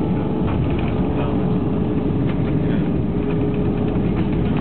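Steady low rumble inside an airliner cabin as the plane lands and rolls along the runway at speed, with a steady hum running through it.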